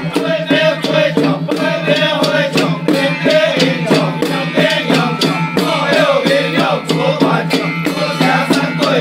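A group of men chanting a ritual song in unison, beating time on hand-held handle drums with sharp, evenly spaced strikes, over a steady low hum.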